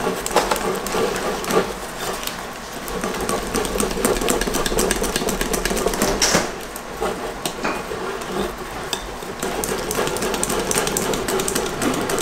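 Small wire whisk beating thick pancake batter in a glass mixing bowl: rapid, irregular clicks of the wires against the glass over the wet stir of the batter.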